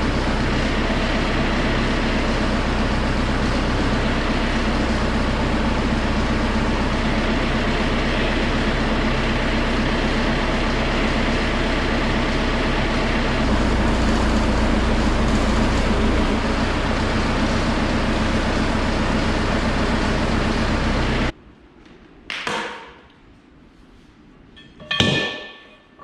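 Telehandler engine running steadily. About 21 seconds in it cuts off suddenly, followed by a few sharp ringing metallic strikes.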